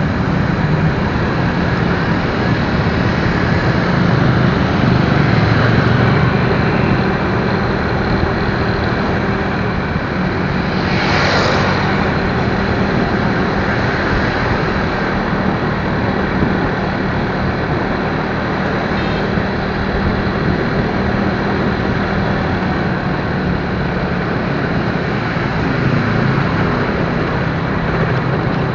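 Steady riding noise from a motorcycle in traffic: a low engine hum under a constant rush of wind and road noise. A brief whoosh of hiss swells and fades about eleven seconds in.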